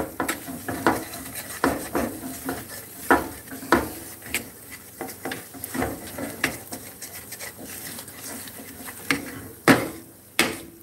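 Wooden spatula stirring and scraping flour and fat around a nonstick skillet for gravy: irregular scrapes and light knocks against the pan, one to a few a second, with two louder knocks near the end.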